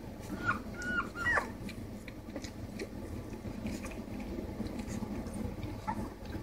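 Three-week-old pit bull puppies whimpering while nursing: three short, high squeaky cries in the first second and a half and a faint one near the end, over low shuffling and suckling noise from the pile of pups.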